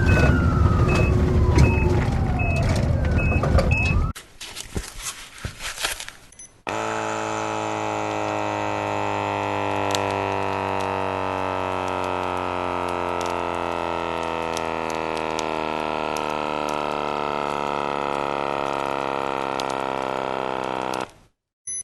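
An emergency vehicle siren wails, gliding down in pitch under a quick beeping about twice a second, and cuts off about four seconds in. After a short quieter gap, a steady drone with many overtones runs, slowly sinking in pitch, and stops abruptly near the end.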